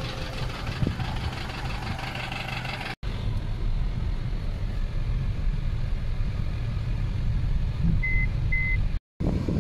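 A box truck's engine idling with a steady low hum. Then, after a cut, the drone of a car driving inside its cabin, with two short high beeps about a second before the end.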